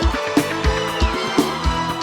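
A live forró band playing an instrumental passage over a steady drum beat.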